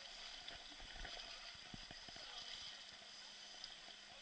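Steady rush of river water, with a few soft low knocks.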